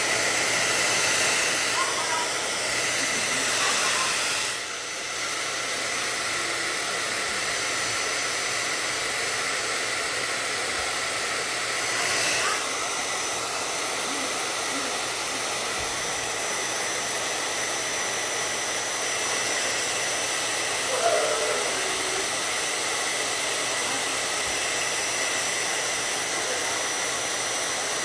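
Handheld hair dryer blowing steadily right by the microphone: a loud rush of air with a faint high whine. It drops a little in level about four and a half seconds in, then holds steady.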